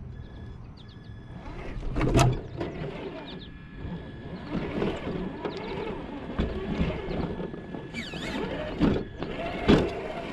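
Radio-controlled Traxxas TRX-4 crawler's electric motor and geared drivetrain whining, rising and falling in pitch with the throttle as it crawls over rough ground. Several sharp knocks come from the truck hitting the ground, the loudest about two seconds in and another near the end.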